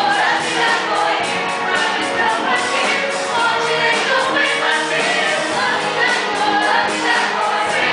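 Musical-theatre cast singing together in chorus over musical accompaniment with a steady beat.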